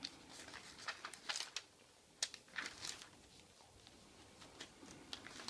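Faint, scattered clicks and short rustles at an irregular pace, a few a second at the busiest.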